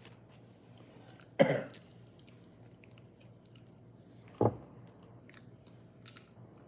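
Someone biting into and chewing a crispy homemade microwave potato chip. There are two short sharp sounds, the loudest about one and a half seconds in and another about four and a half seconds in, with small clicks near the end.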